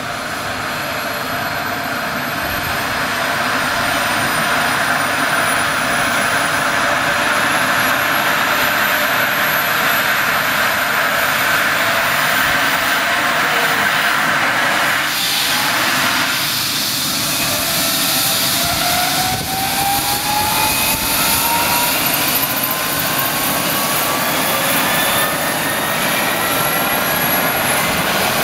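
Eurocopter EC135 helicopter running on the ground, its twin turbine engines and main rotor spooling up. A steady turbine whine and rotor noise grow louder over the first few seconds, with several whining tones gliding slowly upward.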